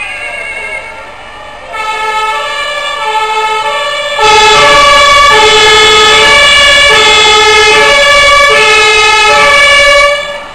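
German two-tone fire brigade sirens (Martinshorn) on passing fire vehicles, stepping back and forth between a high and a low note. A nearer siren joins about two seconds in, and a very loud one starts about four seconds in, then cuts off abruptly near the end.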